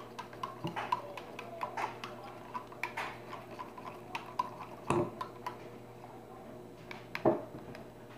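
A metal spoon stirring chocolate milk, clinking repeatedly against the side of the cup with short light ticks, and two louder knocks about five and seven seconds in.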